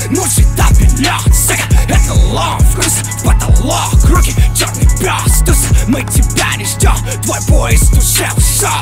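Hip hop beat playing: a deep held bass note under regular kick drums, with busy hi-hats on top.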